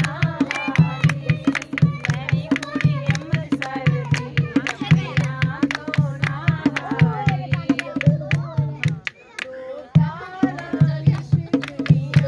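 Women singing Punjabi tappe, a folk song form, to a dholki hand drum beaten in a steady driving rhythm, with hand clapping. About nine seconds in, the drum and singing stop for about a second, then start again.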